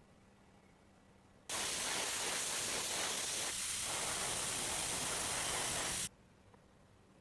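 Pressurised spray hissing in one steady burst of about four and a half seconds, switched on and off abruptly, as when an aerosol can or air gun sprays a small diecast part.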